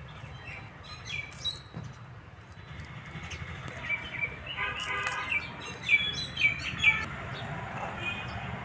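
Small birds chirping and calling, with a few sharp clicks in the second half as fresh green pea pods are split open and the peas drop into an earthenware bowl.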